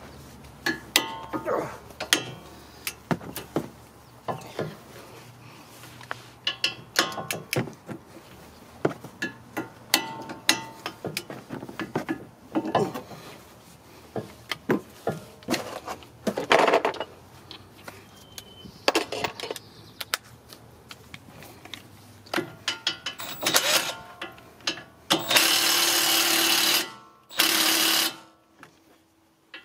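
Metal clinks, clicks and knocks of hand tools and brake parts as a front brake caliper bracket is worked loose with a 17 mm socket and the brake pads are handled. Near the end a cordless power tool runs in two bursts, about two seconds and then under a second.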